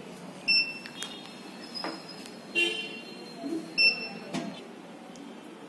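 A few short, high-pitched beeps from the game box's piezo buzzer, the buzzer that sounds when a hand is placed over the wrong odd/even sensor.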